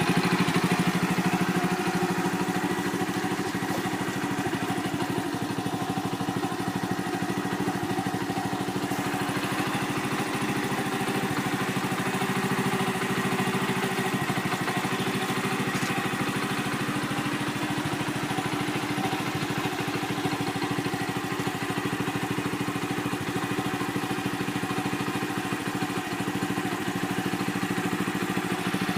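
Honda Little Cub's small single-cylinder four-stroke engine idling through a Takegawa Bomber aftermarket muffler. Its note eases down over the first couple of seconds and then holds a steady idle.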